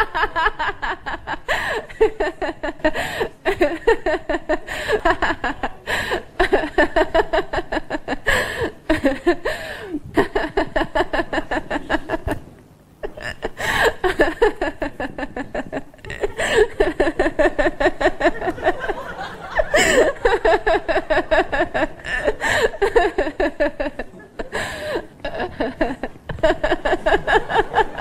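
People laughing in long outbursts of rapid, pulsing ha-ha sounds that rise and fall in pitch, with a brief pause about halfway through.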